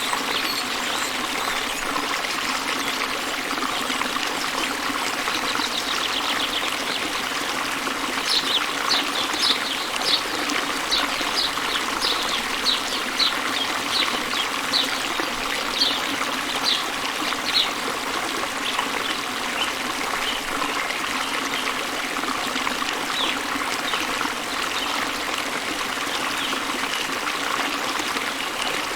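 Waterfall water running steadily. A small bird chirps over it in a run of short, high notes, about two a second, from around eight seconds in until about eighteen seconds, with a few more chirps later.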